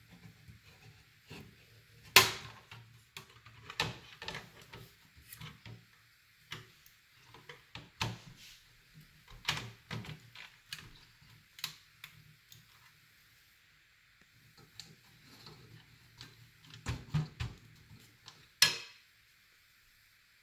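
Scattered clicks and knocks of computer hardware being handled and fitted into a small PC case, with two sharper knocks, about two seconds in and near the end.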